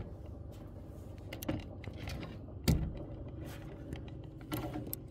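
Small clicks and knocks of a DiscoveryOpt ED-PRS GEN2 scope's elevation turret being handled, its zero-stop ring pushed down until it hits bottom. A few separate taps, the sharpest about two and a half seconds in.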